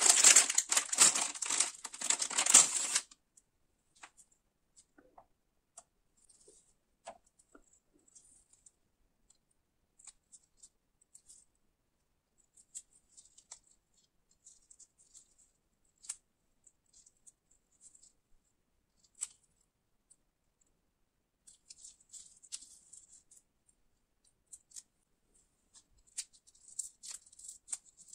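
Plastic wrapper of a crispy cereal bar crinkling and tearing as it is opened, loud for about the first three seconds. After that come faint, scattered crackles of the crisped-cereal bar being handled and broken apart, thickening near the end.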